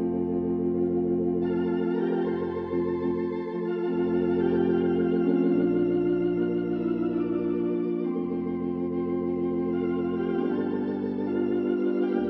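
Electronic console organ playing a slow hymn medley: held chords with a light vibrato over pedal bass notes that change about every two seconds.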